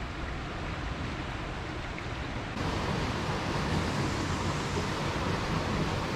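Steady rush of flowing stream water, which gets louder and brighter about two and a half seconds in.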